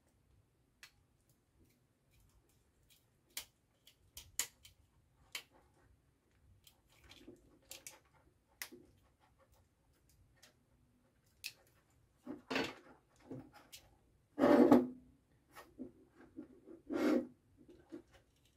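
Small clicks and scrapes of a screwdriver working the screw terminals of a plastic relay socket and wires being fed in. In the second half come a few louder rubbing knocks as the socket and wires are handled.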